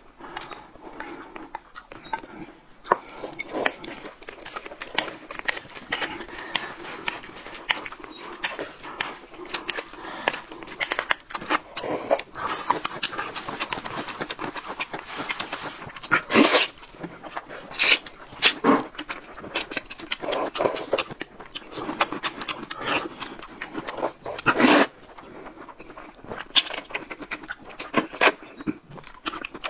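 Close-up eating sounds: chewing and wet smacking with many small clicks, broken by several loud, short slurps of noodles.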